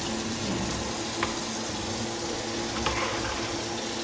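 Steady kitchen hiss with a low hum underneath, and two light clicks of a utensil on the cookware, about a second in and again near three seconds.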